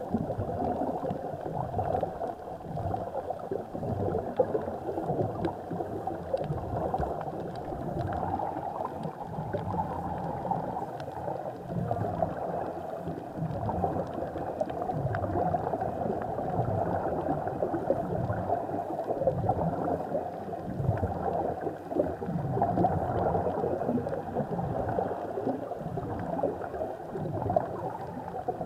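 Steady underwater bubbling and gurgling of air escaping from air-fed sea-walker helmets, heard muffled through an underwater camera housing.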